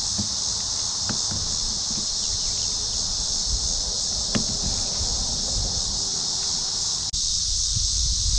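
Steady high-pitched drone of insects, with a few low knocks and thumps from the boat.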